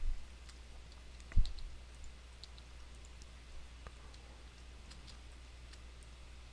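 Scattered, irregular clicks of a computer mouse and keyboard keys being pressed, over a low steady hum, with one louder soft thump about a second and a half in.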